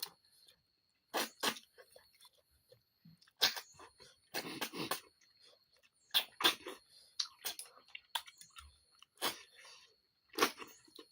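People eating snails, with irregular short chewing and sucking noises and a longer one about four and a half seconds in.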